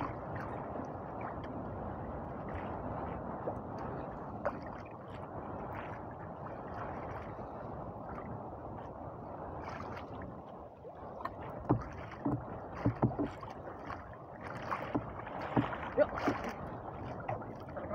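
Sea water sloshing and lapping against the hull of a small fishing boat on choppy open water, a steady wash. Past the middle a scattered run of sharp knocks and taps sounds over it.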